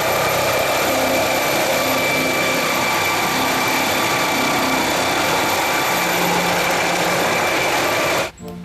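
Turbine helicopter lifting off and hovering: a steady high turbine whine over loud rotor and engine noise, which cuts off abruptly near the end.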